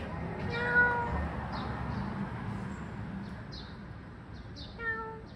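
A cat meowing twice, a longer call about half a second in and a shorter one near the end, with faint short high chirps in between.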